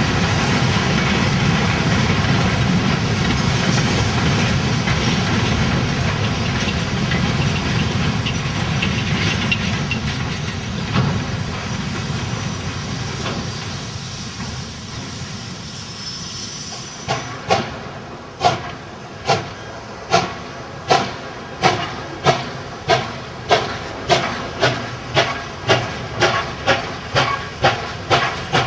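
A steam-hauled freight train rolling past, a steady rumble and clatter of wagons that slowly fades away. Then, about two-thirds of the way in, a Chinese 2-8-2 steam locomotive's exhaust chuffs start up, sharp and evenly spaced, quickening from about one a second as it works a loaded freight train away from a standstill.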